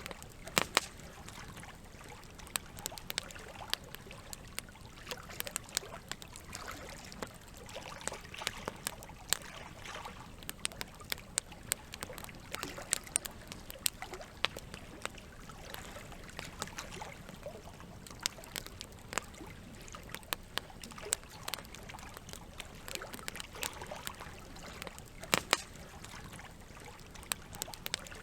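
Campfire crackling, with irregular sharp pops and snaps, a few louder than the rest, over a steady trickle of running water.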